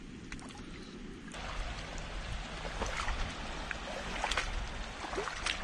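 Shallow seawater trickling and lapping over a coral reef flat at low tide. It grows louder about a second in, with a low rumble underneath and a few faint clicks.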